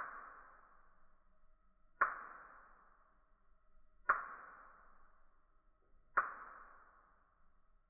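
Four sharp clicks about two seconds apart, each ringing on and fading over about a second and a half, with a faint steady tone beneath them.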